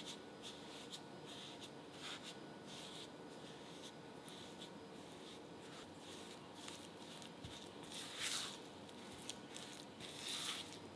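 Silicone spatula mashing and scraping softened butter and caster sugar against a glass mixing bowl while creaming them, in irregular soft strokes. Two longer, louder scrapes come about eight seconds in and near the end.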